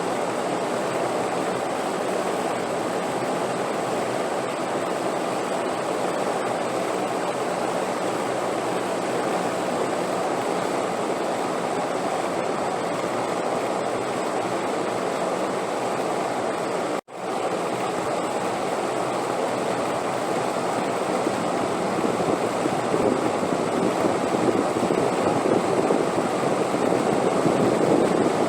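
Steady rushing wind noise. It cuts out for an instant about 17 seconds in, then returns and grows a little louder toward the end.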